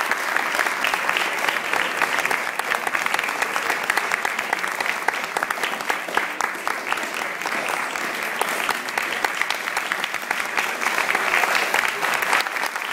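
Audience applauding: many hands clapping at once, thick and continuous.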